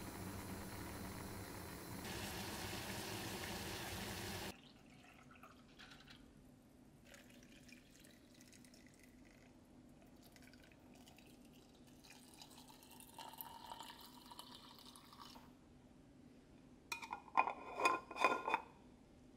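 Steady hiss of a gas stove burner heating a pot of pickling brine, which cuts off suddenly after about four and a half seconds. Then quiet liquid sounds as the brine fills a glass jar of asparagus. Near the end, a stainless steel lid clinks and scrapes against the glass jar as it is closed.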